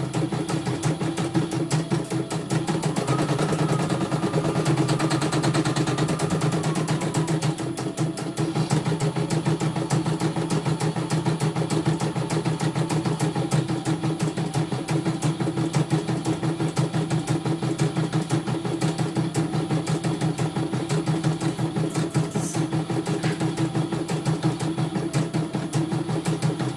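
CNY E900 computerised embroidery machine stitching out a design, its needle mechanism running in a rapid, steady rhythm; a higher whine joins from about three seconds in until about seven and a half. The machine is running a test embroidery, working again after it had gone completely dead.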